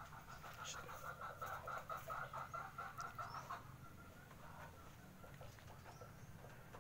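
A chicken clucking faintly in a fast run of about four or five clucks a second, thinning after about three and a half seconds to a few sparser clucks.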